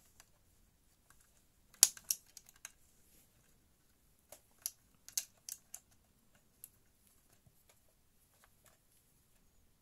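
Sharp clicks and knocks of an all-in-one PC's stand base being locked onto its support. They come in two clusters, about two and about five seconds in, with the loudest near two seconds, then a single click and faint ticks.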